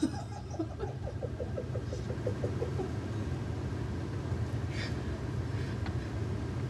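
Newborn baby hiccuping: a short, high, bird-like squeak about five seconds in, after a run of small quick sounds in the first three seconds, over a steady low rumble.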